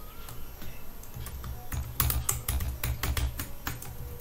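Computer keyboard typing: irregular key clicks, sparse at first, then quicker and louder about halfway through.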